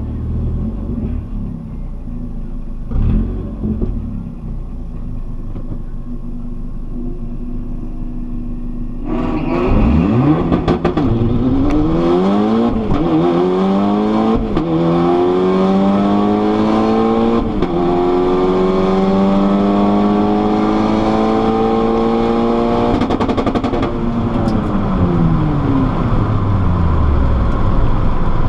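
APR Stage 2+ tuned VW Golf R Mk6's turbocharged 2.0-litre four-cylinder, heard from inside the cabin. It idles at the start line for about nine seconds, then launches and revs up through a quick series of upshifts into a long pull at full throttle, before the revs fall away as it slows past the finish.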